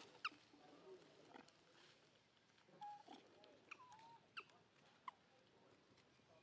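Faint, short high squeaks from long-tailed macaques, four of them dropping steeply in pitch, with a brief lower coo in the middle.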